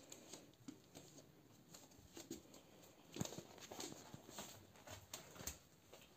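Near silence in a small room, broken by faint rustles and soft taps of handling and movement, with a sharper tap about three seconds in.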